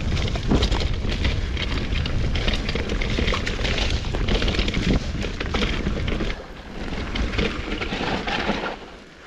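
Mountain bike descending a dirt trail, heard from an action camera on the rider: wind buffeting the microphone in a heavy rumble, over tyres crunching on dirt and gravel and the bike rattling. The wind rumble eases a little past the middle, and the noise drops near the end as the bike slows.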